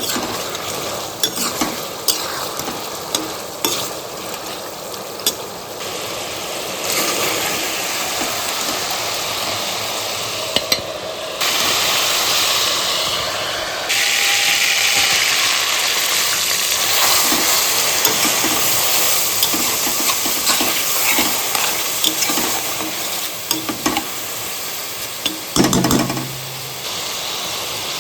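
Food sizzling as it fries in a pan, while a spatula stirs and scrapes it with frequent sharp clicks of metal on the pan. The sizzle changes level abruptly a few times, and there is a brief louder knock near the end.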